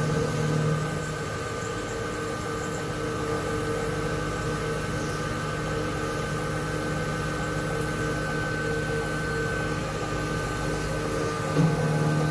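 2006 Haas VF-3 vertical machining center's spindle running while an end mill cuts metal plate: a steady hum and whine made of several fixed tones. It gets briefly louder at the start and again near the end.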